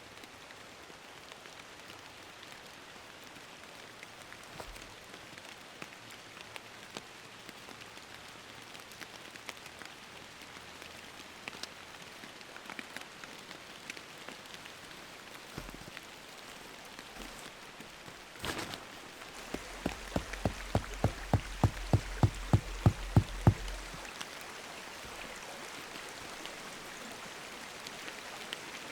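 Steady rain falling, a continuous hiss scattered with small drop taps. Over a few seconds past the middle comes a quick, even run of knocks, about four a second and growing louder.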